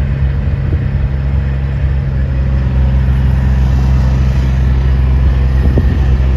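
A motor vehicle's engine running steadily with a deep, unchanging rumble.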